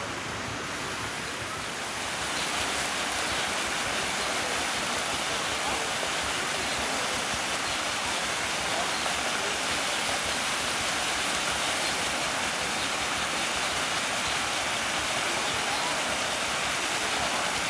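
Fountain water running steadily: spouts pouring into a basin and water spilling over a ledge into a pool. It grows louder about two seconds in.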